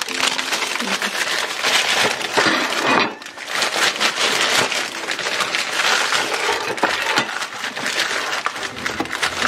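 A paper bakery bag with a clear plastic window crinkling and rustling as it is handled and pastries are pulled out of it, with many small crackles and clicks and a short lull about three seconds in.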